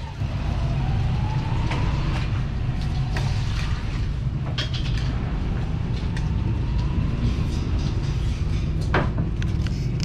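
Steady low rumble of passing road traffic, with a motor's pitch rising near the start. Scattered clicks and clatter of spoons and dishes, with a sharper knock near the end.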